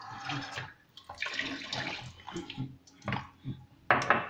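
Water running in a kitchen for about a second, with a few sharp clinks and knocks of kitchenware near the end.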